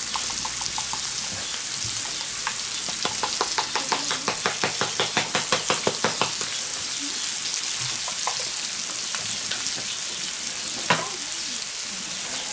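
Diced bacon and spring onions sizzling steadily in a cast-iron pan, with a quick run of rhythmic clicks, about four or five a second, over the first six seconds as a spice shaker is shaken over the pan. One sharper knock near the end.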